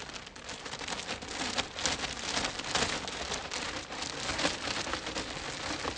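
Plastic zipper bags holding powdery fake snow crinkling and rustling as they are sealed and squeezed, a dense, uneven crackle.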